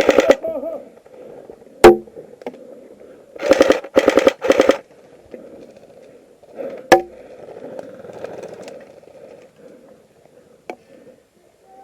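Airsoft AKM rifle firing full-auto, a rapid rattle of shots in short bursts at the very start and again about three and a half to five seconds in. Two single sharp cracks, the loudest sounds, come at about two and seven seconds in.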